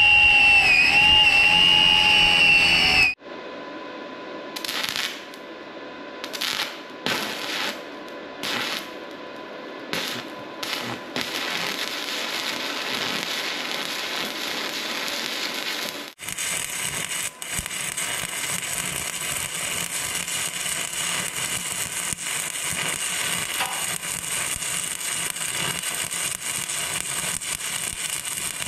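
An angle grinder whines under load for about the first three seconds. It cuts off sharply, and electric arc welding follows, crackling and sputtering in a run of short bursts with brief pauses. About halfway through it changes to a steady, unbroken crackle.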